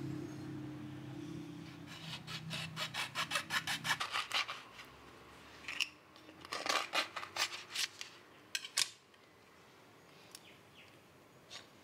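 A kitchen knife sawing through a passionfruit's tough rind on a plastic cutting board in quick back-and-forth strokes, about six a second, followed by a second, more irregular run of cutting and scraping. A low steady hum is under the first few seconds and stops about four seconds in.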